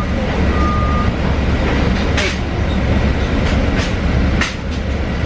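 Inside a moving public transit vehicle: a steady low engine and road rumble, with a short electronic beep about half a second in and a few sharp rattles of the cabin fittings later on.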